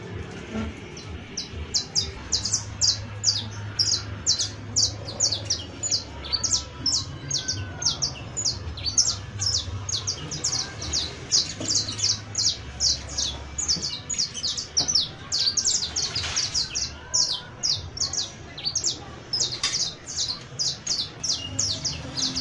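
Saffron finch (Sicalis flaveola, the 'canario criollo') singing an unbroken song of high, sharp downslurred notes, about three to four a second.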